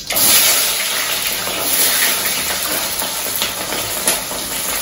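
Chopped shallots and garlic sizzling in hot oil in a clay pot: a loud, steady hiss that starts abruptly.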